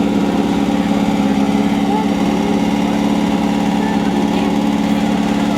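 Off-road race buggy's engine idling steadily, with no revving.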